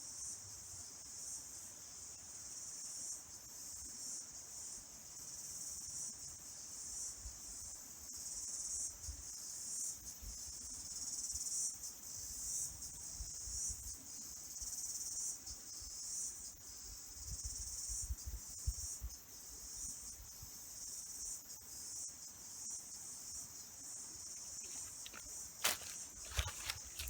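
Insect chorus: a steady high-pitched chirring that swells and fades every second or two, over low rumbles. A few sharp clicks come near the end.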